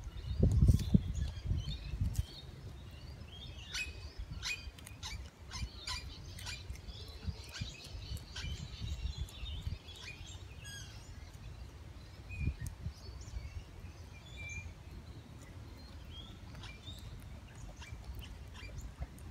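Small birds chirping here and there in the background. A low rumble on the microphone is loudest in the first two seconds, and a run of short sharp clicks comes a few seconds in.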